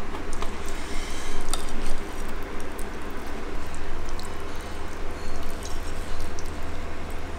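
Soft, moist handling sounds of sliced braised pig's trotter being moved with chopsticks onto ceramic plates, with a few light clicks, over a steady low hum.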